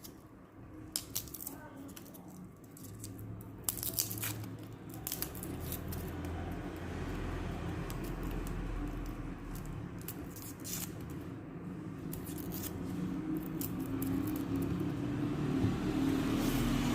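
Scattered small clicks and rustles of hands peeling red garlic cloves, over a steady low hum that grows louder toward the end.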